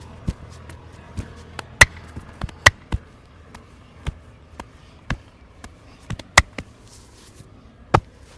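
Head and neck massage: a string of sharp, irregular smacks from the massager's work on the head and neck, some soft and some loud, the loudest about two seconds in, around six and a half seconds in, and near the end.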